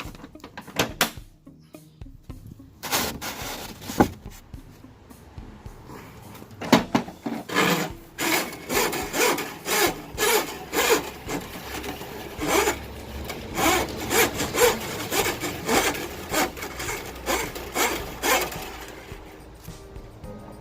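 Steel drain-snake cable being pushed by hand into a Milwaukee Switch Pack sectional drum, scraping in repeated strokes about twice a second as the drum winds it in. A few sharp clicks and knocks come first.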